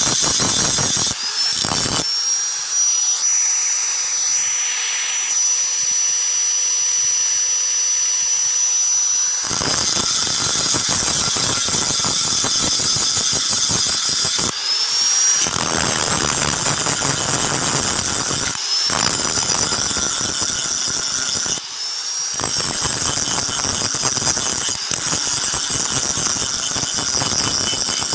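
Electric angle grinder with an abrasive disc grinding a steel blade, a loud grinding noise over the motor's high whine. Several times the disc comes off the steel and the whine rises in pitch before the grinding starts again.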